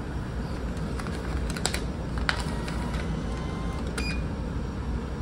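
A few sharp clicks from a ticket-style vending machine as it is worked, then a short electronic beep about four seconds in as the hand reaches its money slot and keypad. Under them runs the ferry's steady low engine rumble.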